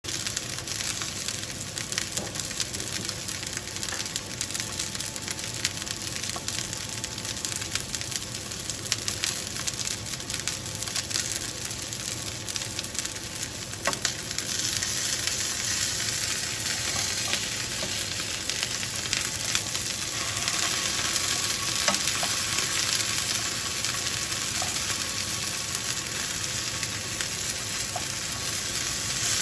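Chicken strips sizzling in hot oil in a pan, a continuous frying hiss with a few light clicks. The sizzle grows louder about halfway through as the pieces are turned over.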